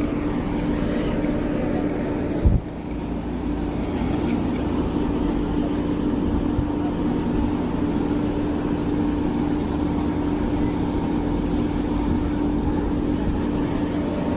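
Steady turbine hum and whine from the C-130J Super Hercules standing on the apron, a constant low tone over a rushing rumble. A single sharp knock comes about two and a half seconds in.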